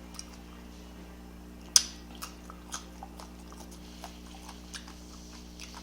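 A person chewing food close to the microphone: faint, scattered mouth clicks, with one sharper click a little under two seconds in, over a steady low hum.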